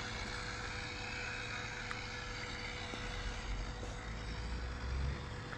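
Small 3D-printed RC boat's brushless electric motor and propeller running under power, a whine that wavers in pitch. A low rumble joins it about three seconds in.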